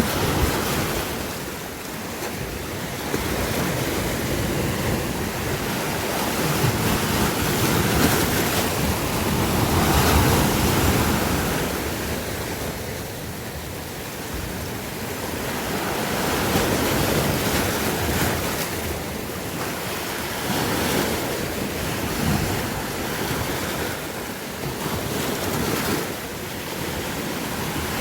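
Sea waves washing on a shore: a continuous rush of surf that swells and eases every few seconds.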